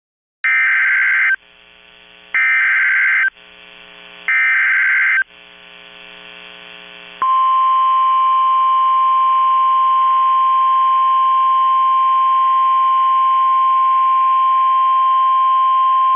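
Emergency Alert System header: three bursts of SAME digital data tones, each about a second long with about a second between them, followed by the long, steady single-tone 1050 Hz attention signal. This is the lead-in to a National Weather Service flash flood warning.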